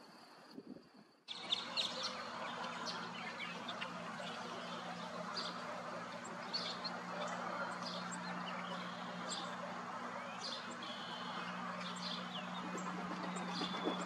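Wild birds chirping and calling in short, scattered notes, over a steady low hum and a background hiss; the sound begins near-quiet and the chirping comes in abruptly about a second in.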